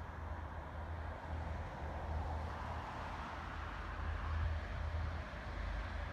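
Wind buffeting the microphone in a low, uneven rumble over a steady outdoor hiss of distant vehicles, which swells slightly about halfway through.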